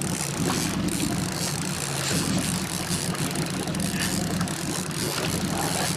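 Fishing boat's engine running at a low, steady speed, a constant low hum, with a steady hiss of wind and water over it.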